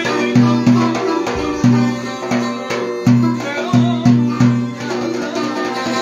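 Violin and cümbüş (banjo-bodied Turkish lute) playing a Black Sea folk dance tune (oyun havası) together. The plucked strings keep a steady, even beat of low repeated notes under the violin melody.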